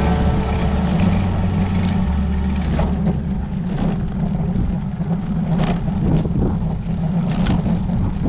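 Wind buffeting the microphone of a handlebar-mounted camera on a road bike riding along, a steady deep rumble mixed with tyre noise on the pavement, with a few faint clicks scattered through it.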